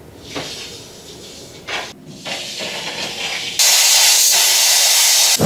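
Handheld plasma cutter cutting a strip off steel plate: a loud steady hiss that starts about three and a half seconds in and stops abruptly near the end, after a few quieter scraping noises.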